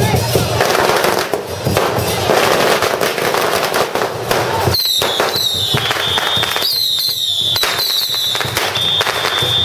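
Strings of firecrackers going off in a dense, continuous crackle. From about halfway through, a high steady whistle with short falling slides at its starts sounds over the crackling.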